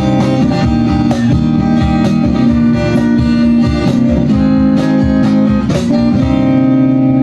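Two acoustic guitars strumming chords over a steady cajon beat, with no singing. About six seconds in the beat stops and a final strummed chord is left ringing.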